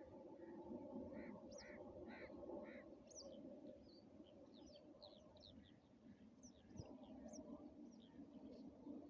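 Faint calls of several birds: a run of four short calls in the first few seconds, then many quick high chirps, over a steady low background hum.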